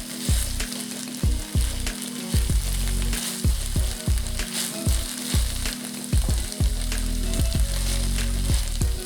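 Sliced sausages sizzling as they fry in a pan, with scattered clicks of a utensil stirring them.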